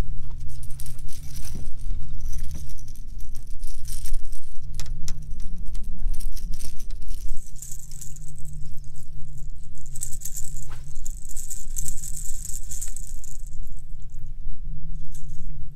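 Steady low hum of the boat's bow-mounted electric trolling motor, its pitch shifting about four and a half seconds in, under a light jangling rattle and scattered clicks that are strongest about ten to thirteen seconds in.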